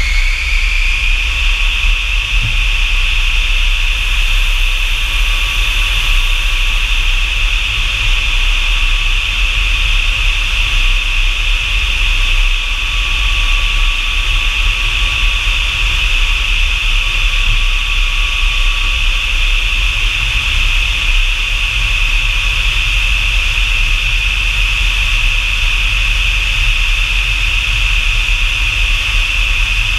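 Jet engine of an F-100 Super Sabre, a Pratt & Whitney J57 turbojet, with its whine rising and levelling off about a second in, then running steadily with a high whine over a low rumble.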